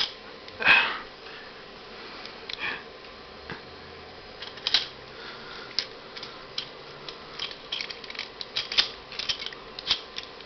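Plastic action-figure parts clicking and tapping as the toy robot is handled and its joints and pieces are moved, with a run of small clicks in the second half.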